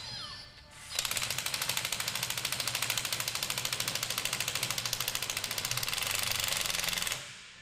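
A pneumatic air tool hammering in a fast, even rattle of blows. It starts about a second in and stops shortly before the end.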